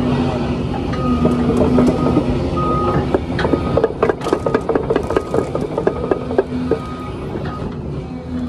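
A Hyundai 30-tonne excavator's diesel engine and hydraulics working under load, with a high whine that comes and goes. From about three seconds in, a run of sharp cracks and snaps as the hydraulic grab pushes into broken pine branches and debris, easing off near the end.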